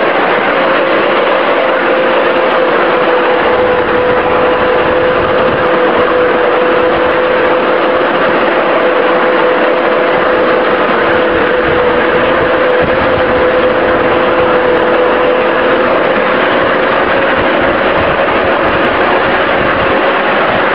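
5-inch gauge 0-4-0 electric shunting locomotive under way: its drive gives a steady whine over a continuous hiss and rumble of small wheels running on the rails.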